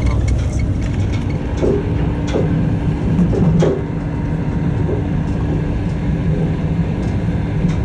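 A train running, heard from inside a carriage: a steady rumble with a low drone.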